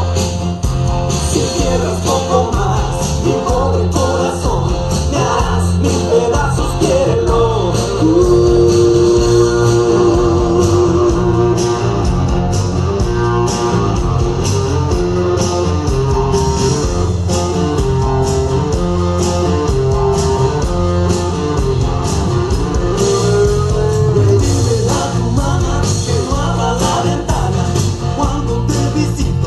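Song with singing and a steady beat, played loud with heavy bass over a party sound system. A sung note is held and wavers for a few seconds about eight seconds in.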